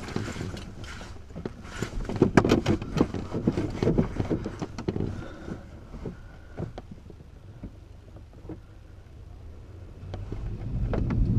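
Glider cockpit at the start of an aero-tow launch: scattered clicks and knocks in the first few seconds, then a low rumble that grows steadily louder near the end as the tow begins.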